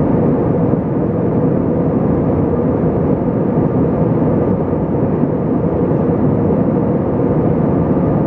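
Cabin noise inside an Airbus A320 in flight: the engines and the air rushing past the fuselage make an even, deep rush with a faint steady hum in it.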